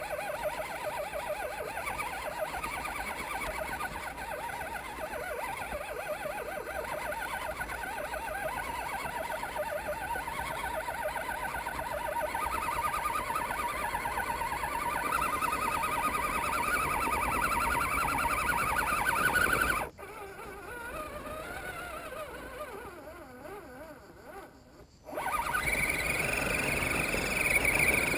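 Electric motor and gearbox of an Axial SCX10 1/10 scale RC crawler whining as it drives up a rocky trail, heard from a camera mounted on the car. The whine grows louder over the first twenty seconds, drops away suddenly, then comes back a few seconds before the end.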